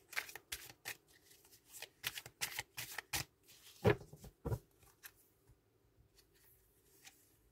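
Tarot cards being shuffled by hand: a run of quick, papery snaps and slaps of cards that dies away about five seconds in.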